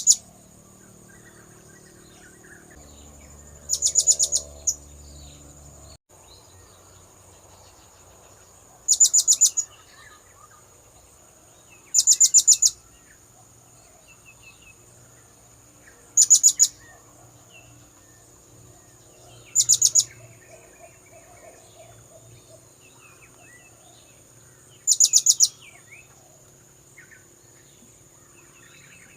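Blue-crowned hanging parrot (serindit) lure calls: short, shrill bursts of rapid high notes, each under a second, repeated every few seconds. A faint steady high-pitched tone runs underneath.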